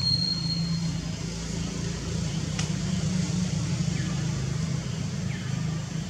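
Steady low rumble of a running vehicle engine, with a brief thin high whistle in the first second.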